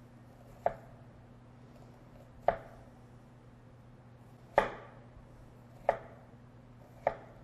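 Knife slicing down through a red onion onto a plastic cutting board: five separate sharp taps, one every one to two seconds, as the onion is cut for a small dice.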